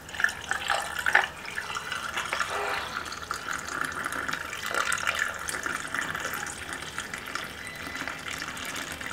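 Cold milky coffee pouring in a thin steady stream into a glass mug full of ice cubes, with a couple of sharp clicks in the first second or so.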